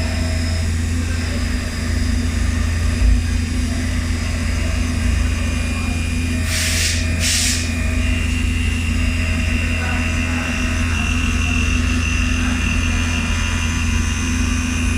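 CNC milling machine running a thread-milling cut: a steady machine hum with a high steady whine. About halfway through come two short hisses, and just after them a second high tone comes in and holds.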